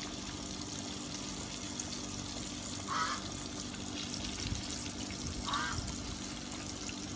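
Fish broth simmering in an electric skillet, a steady bubbling hiss. Two short high chirps sound over it, about three seconds in and again near five and a half seconds.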